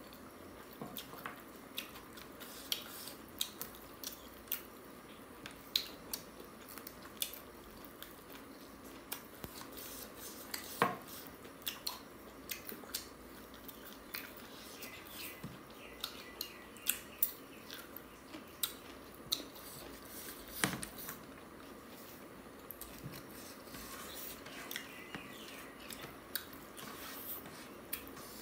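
Close-up eating sounds of two people eating chicken curry and rice with their hands: chewing and mouth smacks in an irregular run of short, sharp clicks, with fingers working food on a plastic plate. Two clicks stand out louder, one near the middle and one about two-thirds through.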